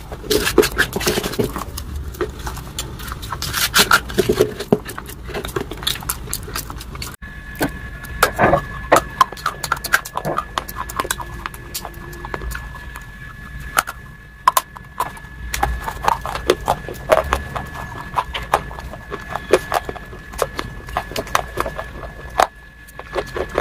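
Close-miked mouth sounds of someone eating: wet smacking and chewing of a soft mushy food, then, after a sudden cut, chewing with quick irregular clicks and crackles. A faint steady high tone runs under the second part.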